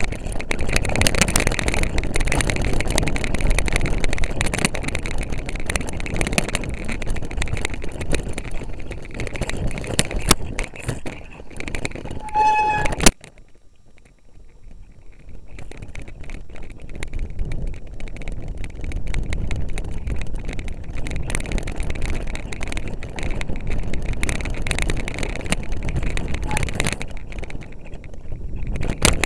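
Mountain bike rattling hard over rough ground, with wind on the microphone and the bike and camera shaking. About halfway there is a brief squeal, then the noise drops off suddenly for a couple of seconds before building back up to the same rattle.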